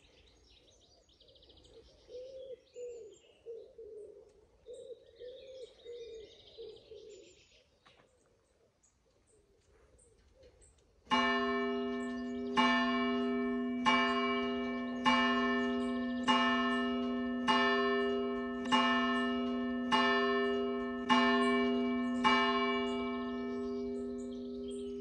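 Birdsong, with high chirps and a low cooing call repeated over and over, then from about halfway a single church bell tolling: about ten strokes of the same note a little over a second apart, each ringing on into the next.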